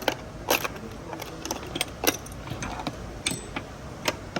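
Metal hand tools clinking and rattling against each other in a toolbox drawer: a string of irregular sharp clicks.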